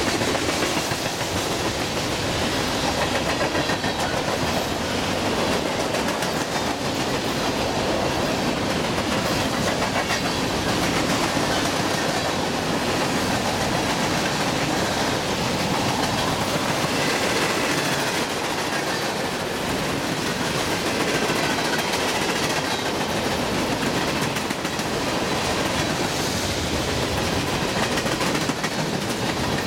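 Freight cars of a long mixed freight train rolling steadily past on steel wheels: a continuous rumble and clatter of wheels on rail, with no letup.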